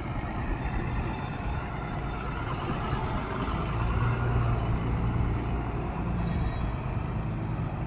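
Bus engine running as the bus manoeuvres slowly on a dirt track, with tyre and road noise. It grows louder about halfway through as the bus swings past close by.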